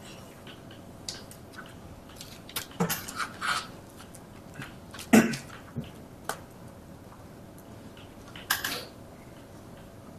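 Chalk writing on a blackboard: scattered taps and short scraping strokes, bunched in clusters, with one sharper knock about five seconds in.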